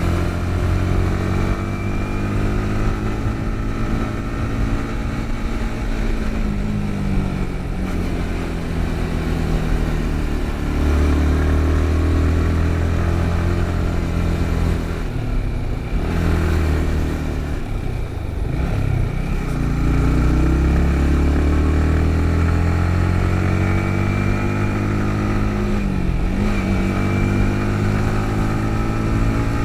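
Yamaha MT-15's single-cylinder engine under way, its pitch dropping several times as the throttle is eased or a gear changes, then climbing again.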